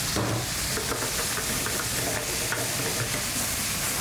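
Radicchio and chicory sizzling in hot olive oil in a frying pan, stirred with a spatula that scrapes and ticks against the pan.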